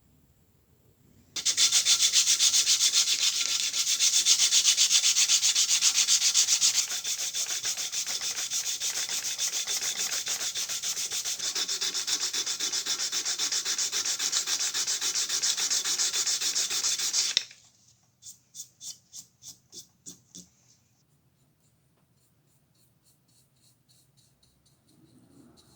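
Abrasive scrubbing of rust off a steel dengle hammer, in fast continuous back-and-forth strokes that stop abruptly after about sixteen seconds and ease off a little partway through. After a short pause come about eight short, separate strokes.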